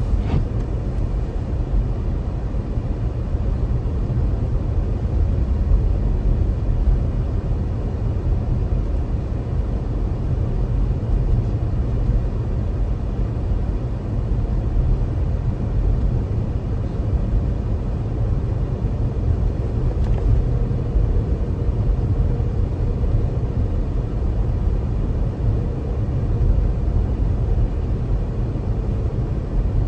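Car driving, its engine and tyres making a steady low rumble.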